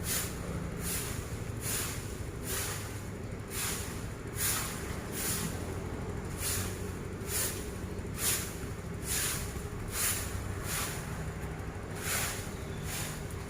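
A broom sweeping leaves across the ground in steady, evenly spaced strokes, a little more than one a second, over a steady low hum.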